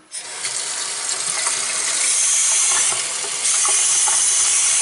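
Delta kitchen faucet turned on, its water stream running steadily into the sink, with the flow growing stronger about three and a half seconds in.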